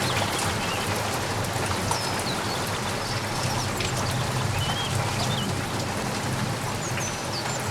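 Steady rain falling and pattering on surfaces, with scattered short, high chirps in the background.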